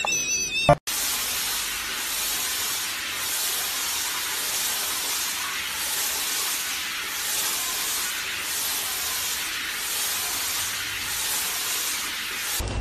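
Steady hiss of water spraying from a handheld shower head onto a dog sitting in a basin. A woman's laughing scream cuts off abruptly about a second in, just before the hiss starts.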